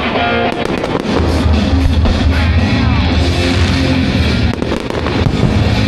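Loud rock-style music with a heavy bass, with fireworks banging and crackling over it, several bangs close together in the first second.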